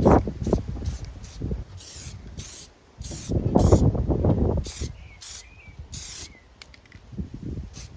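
Spray paint hissing out in a dozen or so short bursts as a lawn mower deck is resprayed. Wind buffets the microphone with a low rumble throughout.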